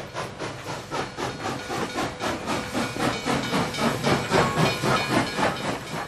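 Train sound effect: a train running with a steady, rapid rhythmic chugging, about six beats a second, growing louder over the first few seconds.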